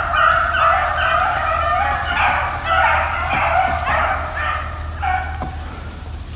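A pack of beagles bays in an overlapping chorus while running a rabbit on its scent. The voices carry on steadily and grow a little fainter near the end.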